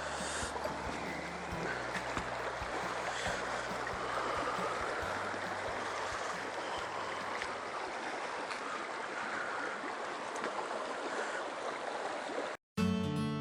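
Mountain stream rushing steadily over rocks. Near the end it cuts off abruptly and acoustic guitar music begins.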